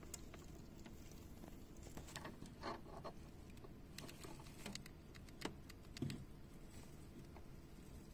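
Faint, scattered small clicks and rustles from a hamster moving in wood-shavings bedding in its cage.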